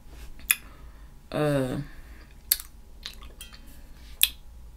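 A few sharp, separate clicks, three louder ones spread out, with fainter ticks between them, and one short voiced sound from the woman about a second and a half in.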